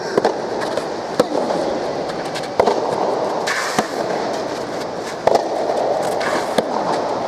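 Soft tennis rally: sharp pops of rackets striking the soft rubber ball, about one every second or so, over steady background noise.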